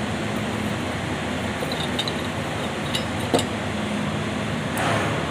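A few light metallic clinks and taps as air compressor head parts are handled, one sharper tap the loudest, over a steady background hum and noise, with a brief rustle near the end.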